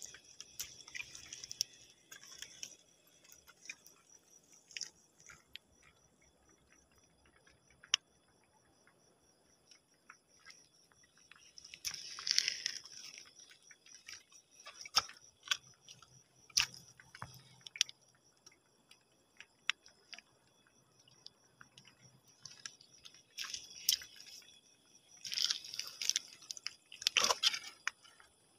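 Irregular crunching and clicking of footsteps and handling on wet sand, shell grit and coral rubble, loudest in two clusters of crunches, about halfway and near the end. Crickets trill steadily and high underneath.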